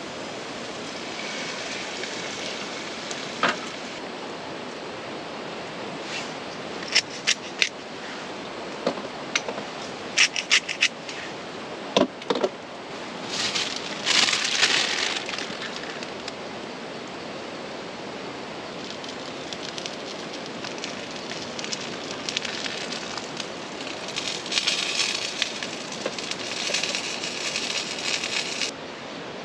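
Potatoes and omelette frying in oil in a Trangia pan, with a steady sizzle. A metal utensil clinks against the pan now and then, with a few longer bouts of scraping.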